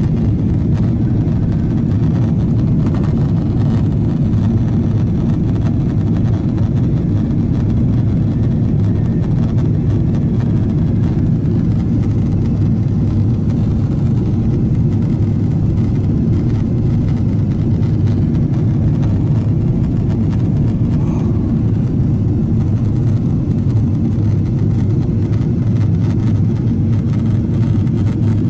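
Steady low rumble of an airliner in flight, heard inside the passenger cabin: engine and airflow noise.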